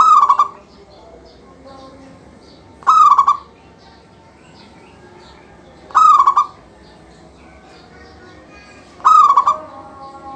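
Zebra dove (perkutut) in full song, giving four loud cooing phrases about three seconds apart. Other small birds chirp faintly between the phrases.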